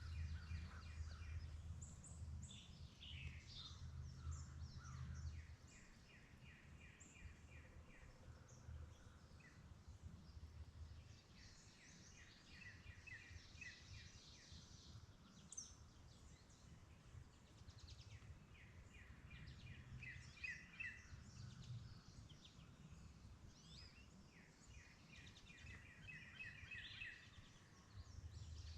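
Songbirds singing faintly outdoors: several short repeated trills and chirps, over a low steady rumble.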